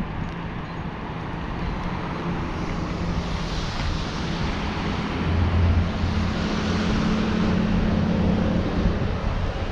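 A motor vehicle passing on the street: engine hum and tyre noise building up, loudest in the second half, then easing off near the end.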